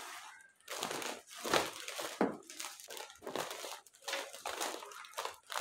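Packaging being handled and crumpled, crinkling and rustling in irregular bursts.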